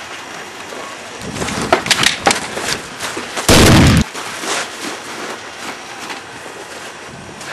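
A single loud, distorted gunshot about three and a half seconds in, lasting about half a second, preceded by a few sharp clicks and crunches.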